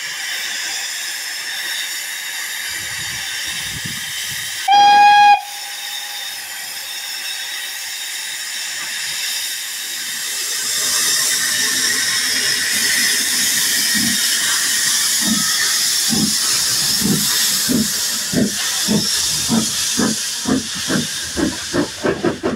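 Steam tank locomotive 16440 standing with steam blowing off in a steady hiss, with one short, loud whistle blast about five seconds in. From about ten seconds the hiss grows as it moves off with steam venting low at the cylinders, and its exhaust beats start, slow at first and quickening as it gathers speed.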